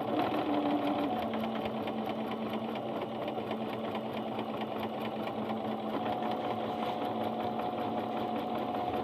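Singer Starlet 6680 domestic sewing machine stitching steadily through a single layer of fabric, needle strokes fast and even. Freshly cleaned, it runs without the knocking it had when dirty.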